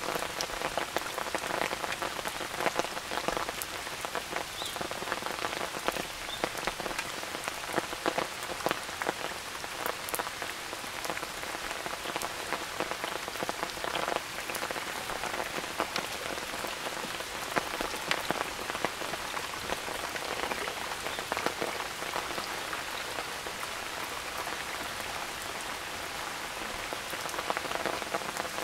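Steady rain falling, with many sharp, separate drop hits close by over an even hiss.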